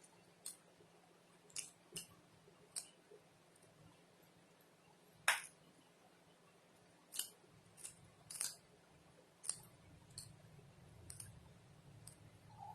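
Eating sounds as spicy noodles are eaten quickly: about a dozen sharp, irregular clicks and ticks, the loudest about five seconds in.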